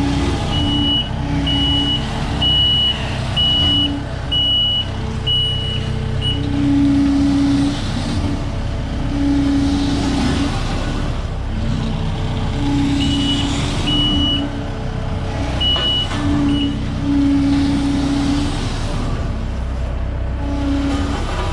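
Diesel engine of a BOMAG roller running under a steady load while its reversing alarm beeps about once a second. The beeping runs for the first six seconds, stops, then comes back for a few beeps past the middle.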